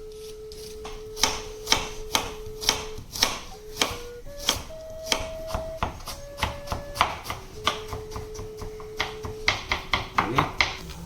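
Knife chopping on a cutting board at a steady pace, about two chops a second, coming faster near the end. Behind it a held tone steps up and down in pitch a few times.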